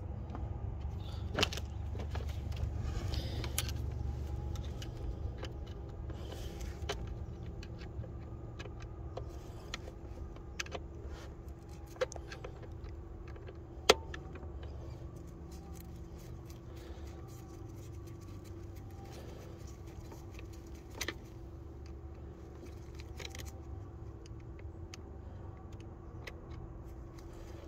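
Scattered metallic clicks and clinks of hand tools while a screwdriver works a bracket screw, the sharpest click about halfway through, over a steady low hum.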